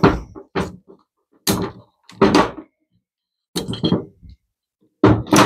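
A series of separate metal clunks and knocks as a valve spring compressor is released and handled on a Briggs & Stratton overhead-valve cylinder head; the last clunk, near the end, leaves a brief metallic ring.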